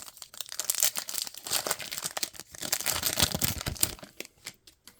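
Plastic football-card pack wrapper crinkling and tearing as it is ripped open: a dense crackle that thins to a few separate clicks near the end.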